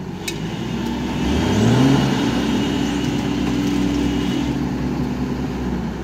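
Heavy vehicle engine revving up about a second in, held at higher revs for a few seconds, then easing back down near the end.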